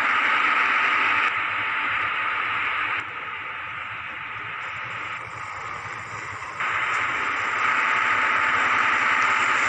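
Model train locomotive running on its track: a steady hissing whir that drops quieter about three seconds in and comes back up near seven seconds.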